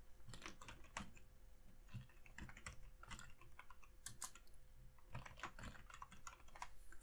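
Faint typing on a computer keyboard: irregular runs of keystrokes.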